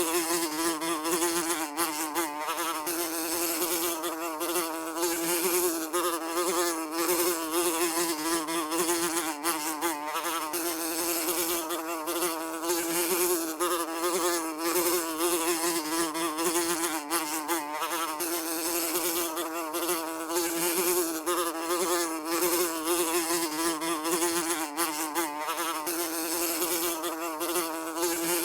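A fly buzzing continuously in flight: a steady wing drone whose pitch wavers slightly up and down without stopping.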